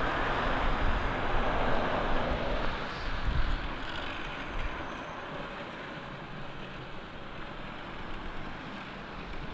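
A vehicle driving past on the street, loudest at first and fading away over the next few seconds.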